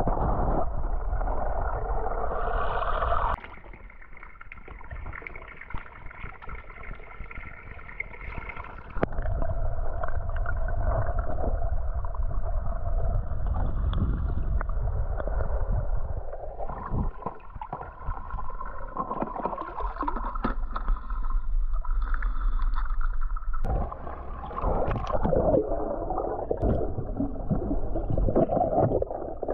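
Muffled water gurgling and sloshing heard by a camera at and under the water surface, over a steady low rumble with a held hum. It drops quieter about three seconds in and comes back up about nine seconds in.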